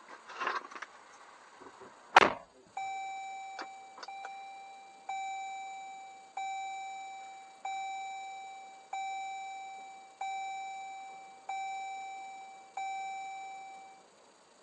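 A car door shuts with a loud thump about two seconds in, then an electronic car warning chime repeats, a single ringing tone roughly every second and a quarter, each fading before the next, until it stops near the end.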